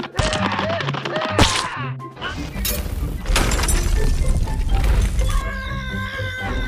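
Cartoon soundtrack: background music with sudden crash and smash sound effects in the first half.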